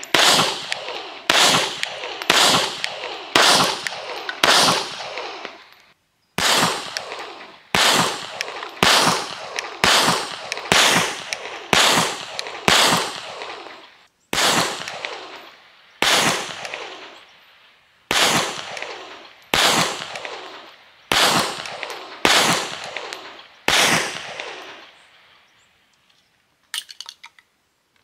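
Kahr CW9 9mm pistol being fired in steady strings of shots, about one a second, with two short breaks between strings. A few light clicks follow near the end.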